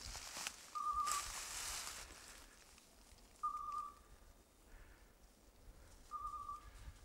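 Electronic beeper collar on an English setter sounding a short steady beep about every two and a half seconds, three times: the point-mode signal that the dog is standing still on point. Brush rustles loudly in the first two seconds.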